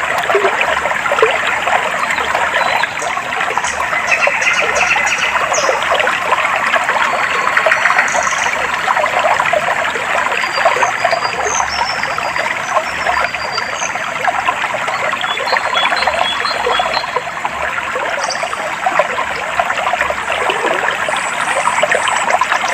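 Clear stream water trickling and babbling steadily over stones, with faint, high, short bird chirps here and there.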